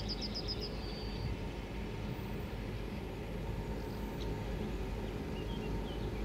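Steady low rumble of a 2M62 twin-section diesel locomotive's 14D40 two-stroke engines as it pulls a freight train away. A small bird sings a quick trill in the first second.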